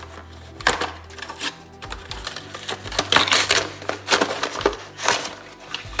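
A cardboard box being opened by hand, its packaging and a plastic tray rustling, scraping and clicking in a quick, uneven run of crackles and knocks, busiest around three seconds in.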